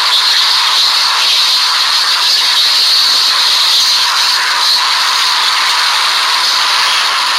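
Loud, steady, harsh hiss like static, with almost no low end, from the badly distorted soundtrack of a video playing back on a phone.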